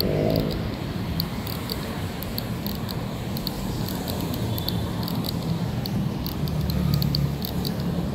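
Busy city street ambience: a steady low traffic rumble, with a quick regular run of small clicks from footsteps on wet pavement.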